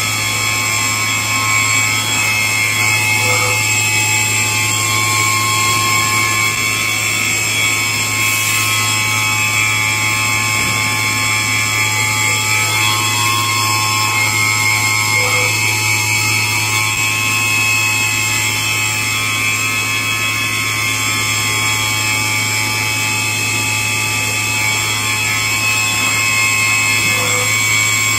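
Walter Helitronic Power 5-axis CNC tool grinder running: a steady low hum with several steady high-pitched whining tones over it. A short faint tone sounds three times, about twelve seconds apart.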